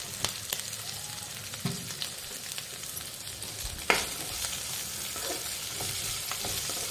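Sliced onions and green capsicum sizzling in hot oil in a nonstick kadai as a steel spoon stirs them, with sharp scrapes and taps of the spoon against the pan, the loudest about four seconds in.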